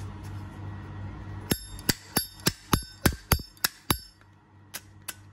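A brushed-chrome Zippo lighter being flicked repeatedly: its metal lid clicks open and shut, or its flint wheel is struck, about four sharp clicks a second with a brief metallic ring. The run starts about a second and a half in and stops a little after four seconds, and a couple more clicks come near the end. Right after, the sound is called nice and the flint wheel said to grip well.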